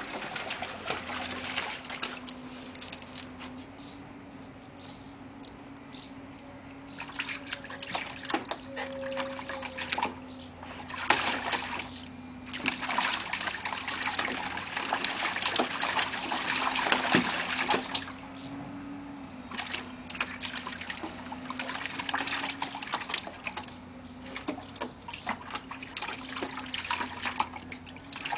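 A border collie puppy splashing and pawing at the water in a plastic paddling pool: bouts of splashing and dribbling water, busiest in the middle and quieter for a few seconds early on. A steady low hum runs underneath.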